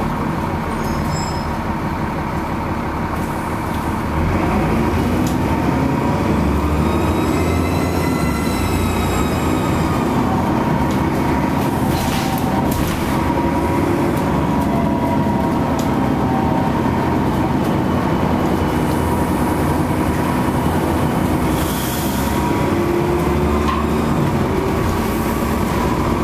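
Dennis Trident double-decker bus heard from on board, its diesel engine running under way with a steady high turbocharger whistle. About four seconds in the engine gets louder and rises and falls in pitch as the bus accelerates.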